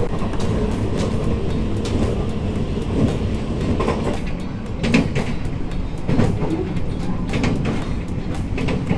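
Limited express Inaho train running at speed, heard from inside the carriage: a steady low rumble with short clacks from the wheels on the rails about once a second.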